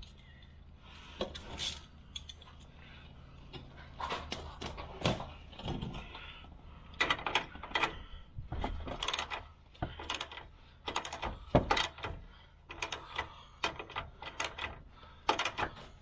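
Hand socket ratchet clicking in quick runs of strokes as it turns a bolt, with metal clinks of the socket and extension bar being handled.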